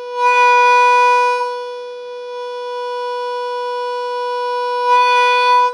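A harmonica holding one steady note, played through a tube compressor set for heavy compression. It swells louder twice, near the start and again near the end, with a quieter stretch between, and the note cuts off at the end.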